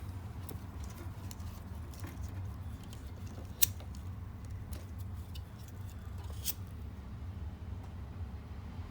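Small clicks and scratchy rustles from handling wiring and a lighter while heat-shrink tubing is worked, over a steady low hum. Two sharper clicks stand out, one about three and a half seconds in and one about six and a half seconds in.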